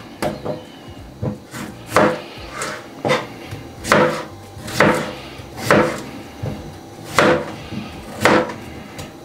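Large kitchen knife chopping potatoes into small cubes on a plastic cutting board. Sharp knocks come about twice a second, unevenly spaced.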